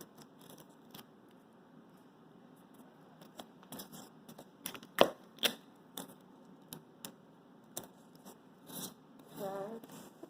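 Hand-crafting noises of cardboard and tape being handled and fitted on a phone: scattered clicks, taps and rustling, with two sharp clicks about five seconds in.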